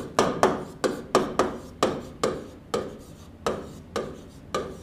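A pen tapping and scraping on the glass screen of an interactive whiteboard as a word is handwritten: a quick series of short strokes, about two or three a second.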